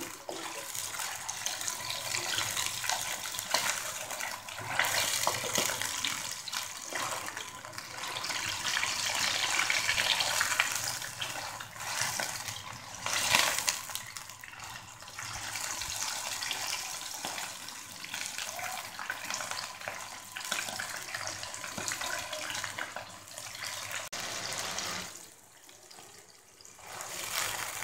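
Pieces of mutton liver sizzling and bubbling in hot oil in a wok, spluttering in the water they give off as they fry, with a spatula stirring them now and then. A louder scrape comes about thirteen seconds in, and the sizzle briefly drops away near the end.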